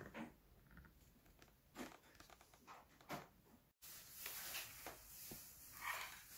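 Near silence: room tone with a few faint, brief knocks.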